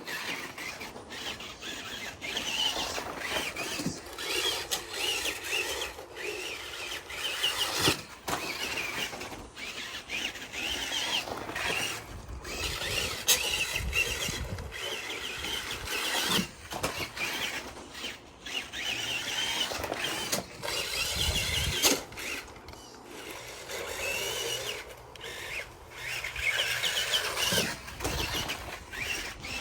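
Electric 2WD RC buggy with a brushed motor running laps: a high motor-and-gear whine that rises and falls as the throttle comes on and off, with occasional sharp knocks.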